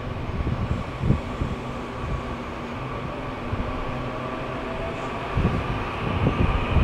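Taiwan Railways EMU800 electric multiple unit moving slowly along the platform. Its traction equipment hums and whines steadily over a low rumble, with one tone slowly rising in pitch midway and a few low knocks in the first seconds.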